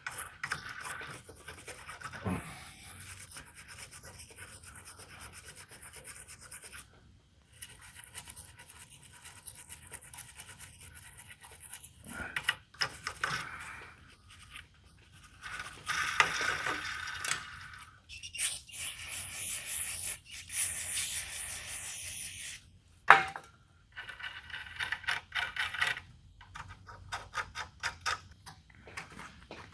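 Hands working a dirty bandsaw guide bearing clean with solvent: gritty scratching, rubbing and small clicks, with several longer hissing stretches and a sharp knock about 23 seconds in. The grit comes from dirt and metal shavings lodged inside the bearing that keep it from rolling freely.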